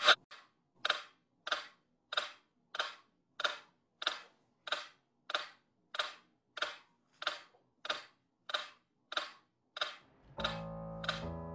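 A regular series of short scratchy strokes, about one and a half a second, each a brief rising-and-fading scrape. Music with held notes comes in about ten seconds in, and the strokes carry on over it.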